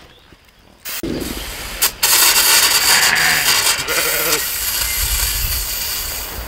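Water hissing out of a garden hose's spray-gun nozzle. It starts about a second in, after the tap on the hose line is opened, and runs strong from two seconds on. A sheep bleats briefly in the background.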